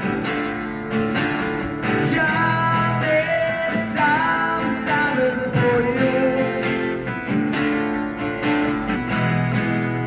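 Music: guitar with a melody line that bends in pitch, over a steady beat.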